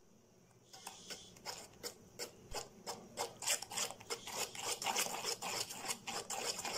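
A hand is stirring wheat flour into a milk-and-sugar batter in a steel bowl, working out the lumps. It makes quick repeated scraping and rubbing strokes against the bowl, starting about a second in and getting busier.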